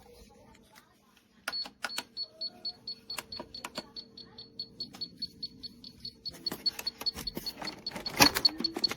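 Rapid, even high-pitched electronic beeping, about five beeps a second, starting about a second and a half in, from the pistol safe's beeper, with scattered clicks of the safe being handled.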